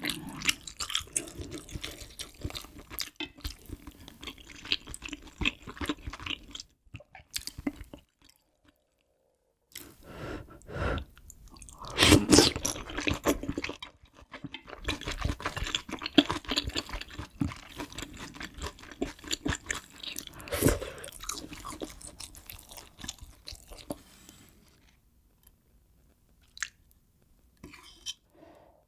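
Close-miked chewing of kimchi stew with tofu and ramen noodles: wet mouth sounds that stop for about two seconds around eight seconds in, come back loudest a few seconds later, and grow fainter near the end.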